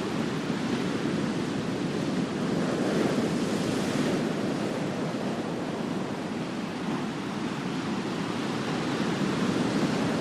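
Ocean surf washing onto a sandy beach: a steady rush of breaking waves, swelling a little about three to four seconds in.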